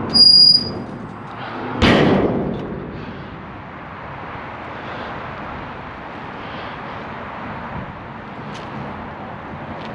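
A short, sharp high-pitched squeak, then a loud thump about two seconds in that fades over a second, followed by the steady running noise of a vehicle on the road.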